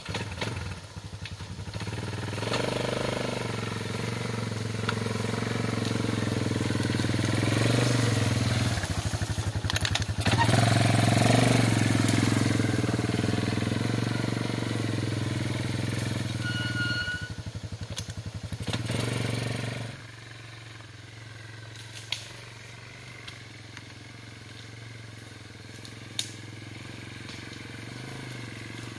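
Yamaha Moto-4 ATV engine running at low speed as it tows a loaded log trailer, growing louder as it comes close, then dropping sharply about two-thirds of the way through and running faintly in the distance.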